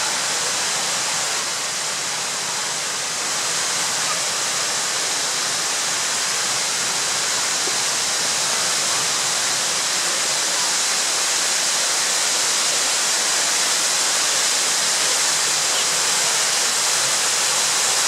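Glencar Waterfall, a tall single drop plunging into a rock pool: a steady, even rush of falling water, growing slowly a little louder.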